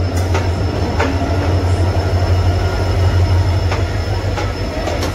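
Indian Railways passenger coaches rolling past close by: irregular sharp clacks of the wheels over rail joints over a steady low rumble, with a thin high wheel squeal that dies away near the end.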